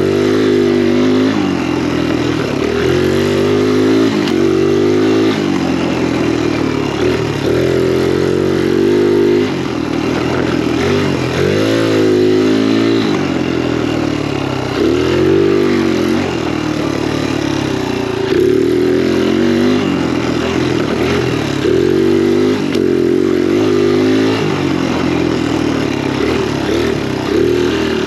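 Kawasaki KLX dirt bike's single-cylinder four-stroke engine running under riding load, its pitch rising and falling over and over as the throttle is opened and closed.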